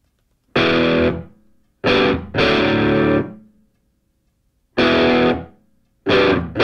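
Background rock music: a distorted electric guitar strikes five loud chords, each ringing briefly and fading to silence before the next.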